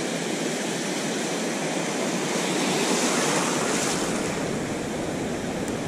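Ocean surf washing in around the feet: a steady rushing wash that swells about halfway through, with a low rumble joining a little after that.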